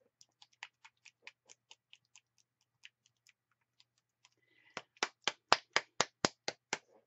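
Paint jar being shaken: rhythmic clicking about four times a second, faint at first, then a louder run of about ten clicks in the second half.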